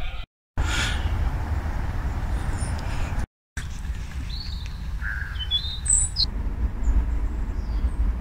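A few short, high bird chirps over a steady low rumble of wind on the phone's microphone, outdoors by water and in a garden. The sound drops out briefly twice where the clips change.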